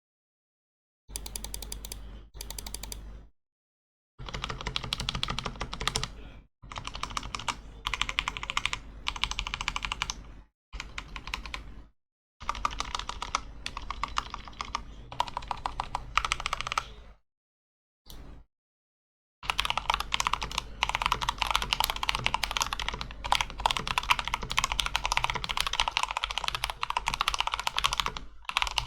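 Modded Phantom TKL mechanical keyboard being typed on: short bursts of rapid key clicks broken by silent pauses, then steady fast typing for the last nine seconds or so.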